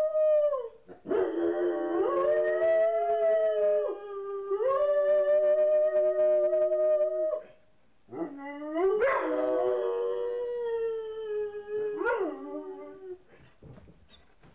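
Two mixed-breed dogs howling together while left home alone, in two long held voices at different pitches. Both break off twice and start again with rising howls, and they tail off near the end.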